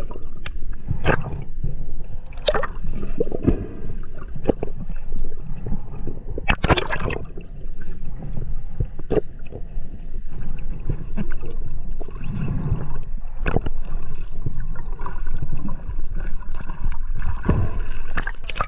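Underwater sound as heard through a diving action camera's housing: a dull, muffled wash of water with gurgling bubbles and many scattered clicks and knocks. The loudest burst comes about seven seconds in.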